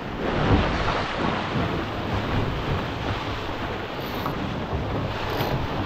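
Strong wind buffeting the microphone in uneven low rumbles, over a steady rush of water along a Fireball sailing dinghy's hull as it sails fast.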